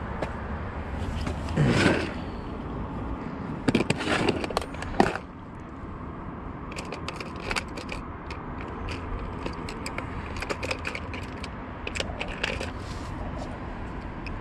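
Hands rummaging in a plastic tackle box: many small plastic clicks and clatters, after a louder rustle about two seconds in and a cluster of louder knocks around four to five seconds.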